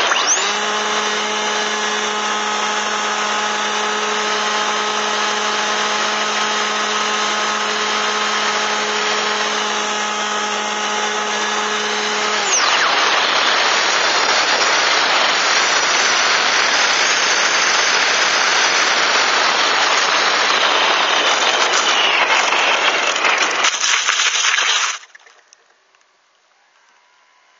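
Onboard sound of an RC model plane in low flight: loud air rush over the airframe with a steady propeller-motor tone for about the first half. The tone then stops and only rushing air remains until the plane settles into the grass near the end, where it goes abruptly quiet.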